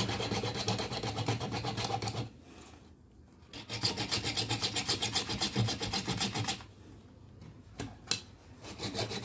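Small hand hacksaw cutting into the plastic casing of a pen-type pH meter in quick, even back-and-forth strokes. The sawing stops twice, for about a second a little after two seconds in and for about two seconds near the end, when a couple of light knocks are heard.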